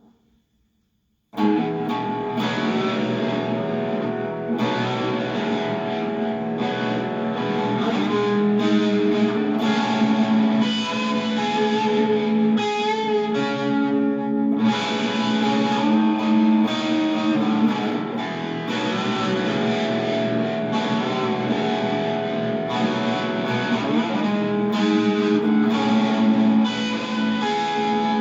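Electric guitar played through effects, strumming sustained chords with changes every few seconds; it comes in about a second in.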